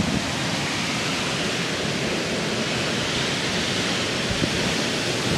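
Hurricane wind blowing in a steady rush, with a brief low rumble of wind on the microphone at the start.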